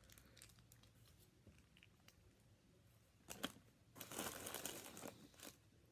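Food packaging being handled, crinkling and tearing: a sharp crinkle about three seconds in, then a rustling tear lasting about a second and a half, over otherwise faint handling noise.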